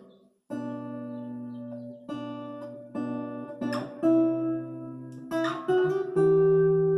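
Epiphone Lil Tex travel acoustic-electric guitar being played: chords struck and left to ring, changing every second or so, starting about half a second in after a brief silence.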